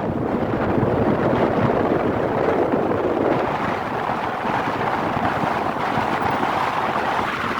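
Steady road and wind noise from a moving vehicle, with wind rushing over the microphone.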